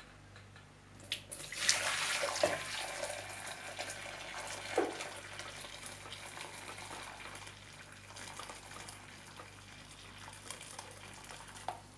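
Boiling water poured in a steady stream into a large glass bowl, strongest about two seconds in and slowly thinning out toward the end. A single click comes just before the pour starts.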